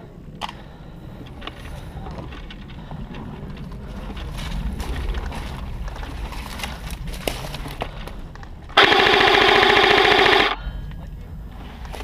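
Airsoft electric gun firing one loud, close full-auto burst of about a second and a half, a rapid buzzing rattle of shots. Before it, a few faint scattered clicks.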